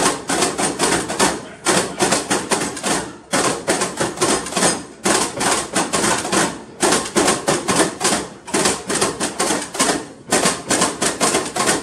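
Four cantilever toolboxes played as percussion instruments: fast, rhythmic clattering and tapping, in short phrases separated by brief breaks.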